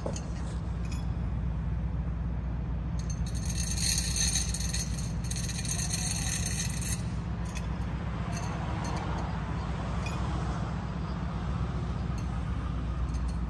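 Steady low engine drone heard from inside a moving vehicle, with light rattling and clinking of loose fittings that gets brighter from about three to seven seconds in.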